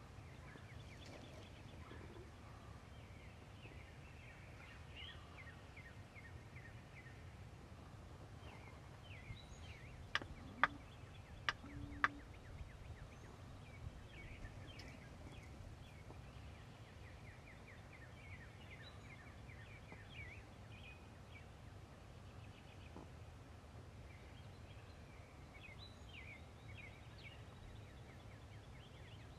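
Wild turkeys in the open, with faint short chirping calls throughout over a low steady rumble. About ten to twelve seconds in come three sharp, loud, very short sounds close together.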